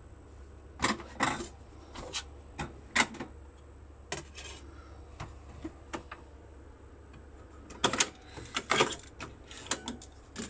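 Irregular plastic clicks and knocks from hands working a Philips AZ 2100 CD radio-cassette boombox's buttons and casing and handling a cassette tape. About a dozen sharp clicks come at uneven intervals, some in quick pairs.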